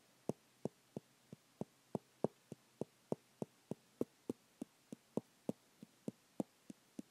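A steady series of short, light taps, about three a second, some louder than others.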